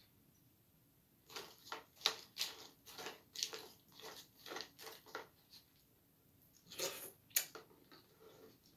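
A person chewing a mouthful of crunchy cereal in milk: a run of soft, even crunches about three a second, pausing, then two louder crunches near the end.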